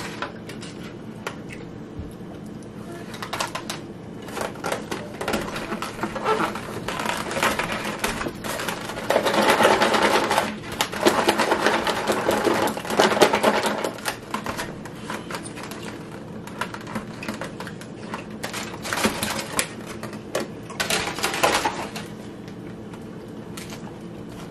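A clear plastic takeout container crackling and rattling as a salad is shaken inside it, loudest for several seconds around the middle, among scattered clicks of plastic forks and containers.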